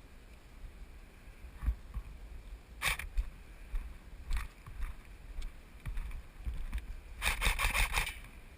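Low rumble of a player moving with a helmet-mounted camera, with a few single sharp clicks and then a quick run of about eight clicks lasting under a second near the end.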